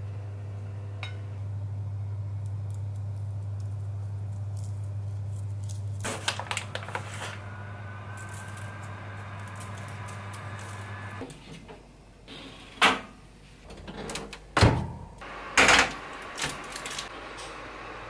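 A steady low hum, then from about six seconds in the clatter of a metal baking tray being handled. After an abrupt change, several loud, sharp knocks and bangs of tray and oven handling come in the last few seconds.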